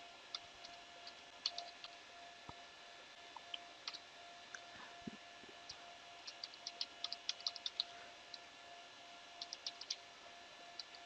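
Faint typing on a computer keyboard: irregular clusters of light keystrokes with short pauses between them.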